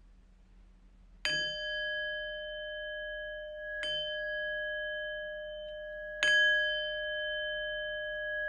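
A bell-like metal chime struck three times, about a second in, near four seconds and about six seconds in, each strike ringing on steadily and overlapping the next; the third strike is the loudest.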